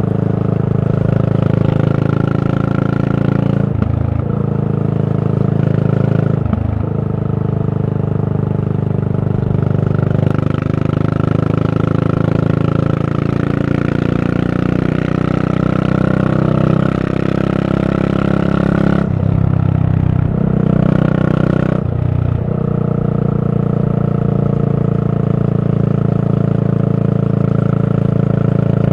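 Yamaha SR400's air-cooled single-cylinder four-stroke engine running under way through a Goods tapered-cone slip-on muffler, a loud, steady exhaust note. The note drops out briefly at about four and six and a half seconds and a few times around twenty seconds in, as when the throttle is closed for gear changes.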